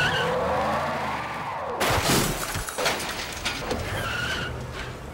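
A car pulls away hard, its tyres squealing and its engine revving in a rising and falling sweep. Sharp cracks and a shattering crash about two seconds in, with another strike about three seconds in.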